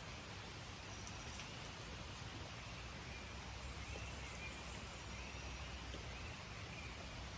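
Steady outdoor ambience: an even hiss with a low rumble beneath it, and a faint wavering high call in the middle.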